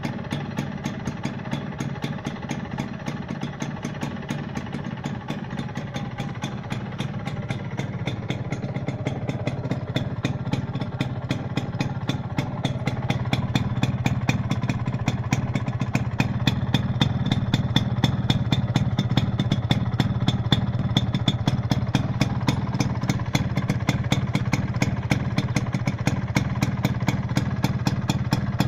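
Yamaha Royale YB100's single-cylinder two-stroke engine idling steadily, a fast, even run of exhaust pulses, growing a little louder over the first dozen seconds and then holding level.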